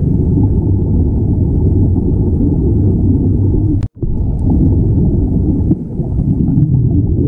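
Muffled underwater rumble of water and streaming air bubbles, heard through an underwater camera's housing. It is steady and low, and cuts out for an instant about four seconds in.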